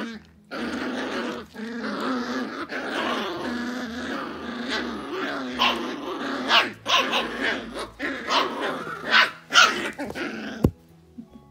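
Puppies growling continuously, with sharp yips and barks coming more often in the second half; the sound cuts off abruptly near the end.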